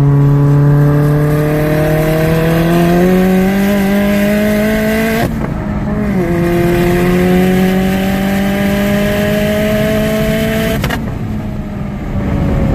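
Big-turbo Mk4 VW Jetta 1.8T four-cylinder engine pulling hard under acceleration, heard from inside the cabin: the engine note rises steadily, drops sharply at a quick upshift about five seconds in, rises again through the next gear, then breaks off and falls away near the end as the throttle is lifted.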